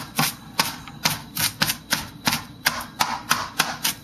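Chinese cleaver chopping sliced baby bok choy on a cutting board: a quick, steady run of knocks, about four a second.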